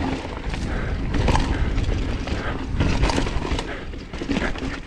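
Mountain bike riding fast down a rocky dirt trail: a steady rumble of wind on the camera microphone, with tyres crunching over dirt and rocks and the bike clattering irregularly over the bumps.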